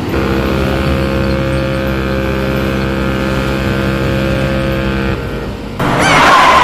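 A large vehicle's engine running steadily at one even pitch, which stops about five seconds in. Near the end, a louder, noisier sound with a falling tone cuts in.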